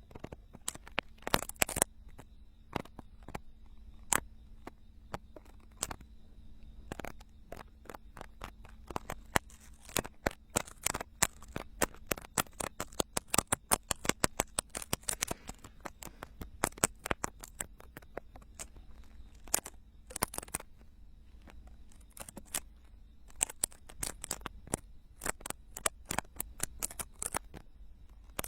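Ear-cleaning tools scraping and picking at a silicone binaural dummy ear, heard close up as irregular crisp clicks and scratches that come in quick runs, thickest in the middle and near the end.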